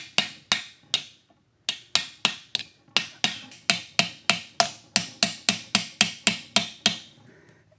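Light hammer taps on metal, evenly spaced at about four a second, with a short pause about a second in.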